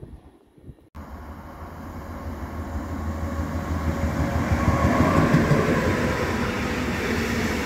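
A train running past on the line, starting abruptly about a second in and growing steadily louder over the next few seconds, with a low steady hum under the rolling noise.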